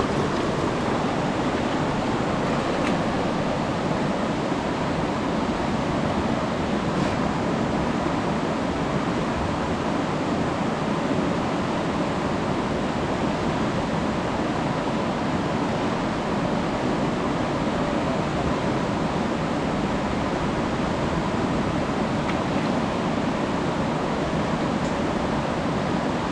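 Steady rushing of a fast-flowing river in flood, the water running loud and unbroken.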